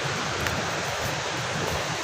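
Steady rush of falling water from the nearby dam and falls, with wind rumbling on the microphone.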